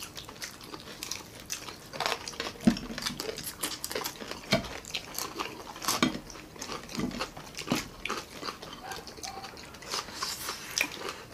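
Close-up eating sounds of crispy pata, deep-fried pork knuckle: several people biting, crunching and chewing the crispy skin and meat, with many short, sharp clicks and smacks throughout.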